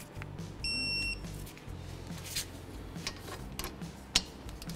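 Digital torque wrench giving one steady electronic beep of about half a second, its signal that the caliper bolt has reached the set torque. A few light clicks of metal tools follow, one of them sharp near the end.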